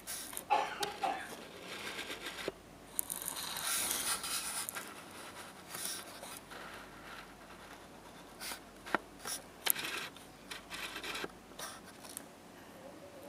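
Handling noise from fingers on the camera: irregular scratching and scraping close to the microphone, with a few sharp clicks.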